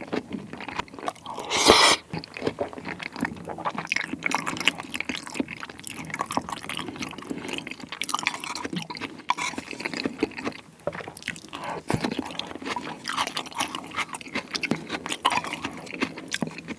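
Close-miked chewing of a piece of raw salmon dipped in sauce with wasabi: wet, sticky mouth sounds with many small smacks, and one louder sound about two seconds in.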